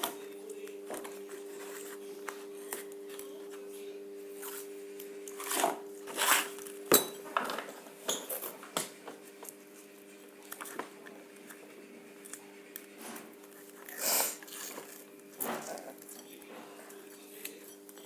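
Handling noise from copper wire and tape being worked by hand: scattered clicks, rustles and scrapes, with a sharp knock about seven seconds in. A steady low hum runs underneath.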